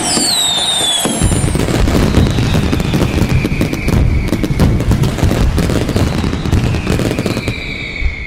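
Fireworks going off in a dense barrage of crackles and bangs, with falling whistles near the start.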